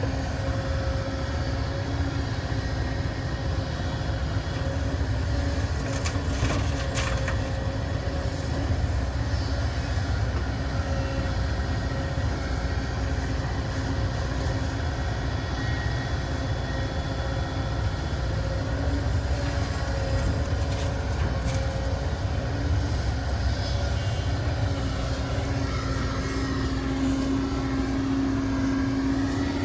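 Diesel engine of heavy earthmoving machinery running steadily, a low rumble with a steady hum that grows stronger near the end. A couple of brief clicks come about six to seven seconds in.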